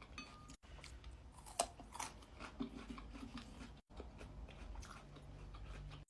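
A person chewing food close to the microphone, with small wet mouth clicks and soft smacks at irregular intervals.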